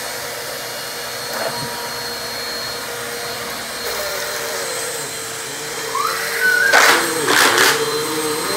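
Bissell PowerForce Compact upright vacuum running steadily over a rug, with a steady motor whine over its airflow hiss; it is running again after a clog was cleared from it. About seven seconds in there are a few short, loud rushes, and the motor tone wavers near the end.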